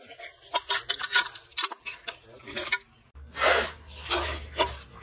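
A metal slotted spoon scrapes and clicks against an aluminium pot as marinated raw prawns are turned over and mixed. About three seconds in, the sound cuts to a steady low hum, followed at once by a loud, short rushing hiss.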